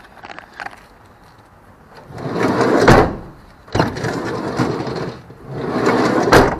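Sliding side door of a Renault Trafic / Vauxhall Vivaro / Nissan Primastar van running along its track on a newly fitted roller. It rolls shut and ends in a thud about three seconds in, then a sharp click, then it rolls open and rolls shut again with another thud near the end.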